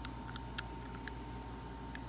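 A few faint, light clicks of a key being worked in the keyhole of an antique Yale three-lever mortise lock during key fitting, over a steady low hum.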